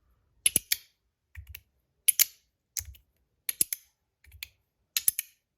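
Stainless steel magnetic EDC fidget slider being slid back and forth, its magnets snapping it into place in quick clusters of two or three sharp metallic clicks, set up as a three-click slider. A cluster comes about every three quarters of a second, alternating louder and softer.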